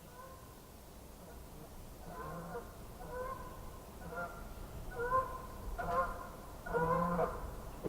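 Geese honking: a run of short, nasal honks that begins about two seconds in and grows louder and more frequent toward the end.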